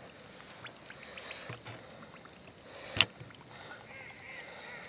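Faint water sounds as a large common carp is eased from a waterlogged sling into lake shallows, with one sudden sharp sound about three seconds in.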